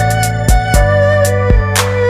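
Background music: a melodic line over a steady bass and a drum beat of roughly two hits a second.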